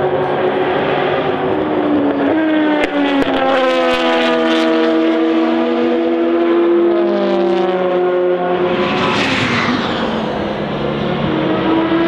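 Rebellion R-One LMP1 prototype's Toyota V8 racing engine at full throttle. It shifts up through the gears with quick jumps in pitch, then holds a long, slowly falling note as it passes, and revs up again near the end.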